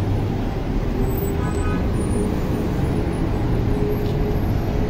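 Steady street traffic: road vehicles running and passing in a continuous rumble.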